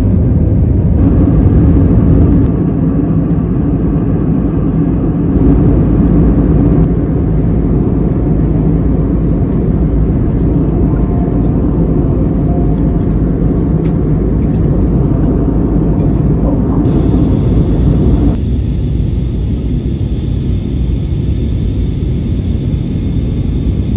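Jet airliner cabin noise heard from a window seat: a steady low rumble of engines and rushing air. It changes suddenly several times as separate clips from different stages of the flight are cut together.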